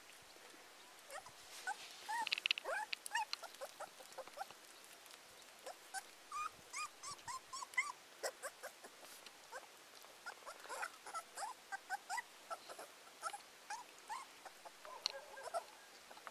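A young pet animal's many short, high-pitched whimpering cries in quick succession, some bending up or down in pitch, with faint clicks among them.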